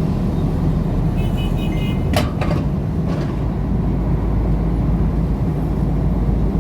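Semi-trailer truck engine running steadily with road noise while driving, with a couple of sharp clicks a little over two seconds in.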